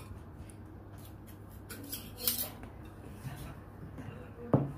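Metal spoon stirring and scooping thick lentil stew in a serving dish, with a few light clinks of the spoon against the dish; the sharpest comes near the end.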